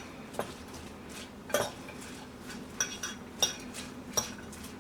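A spoon stirring pikliz (shredded cabbage, carrot and hot peppers in vinegar) in a bowl, with a sharp clink against the bowl every second or so.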